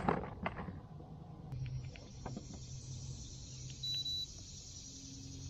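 A faint steady low hum with hiss, and one short high-pitched electronic beep about four seconds in.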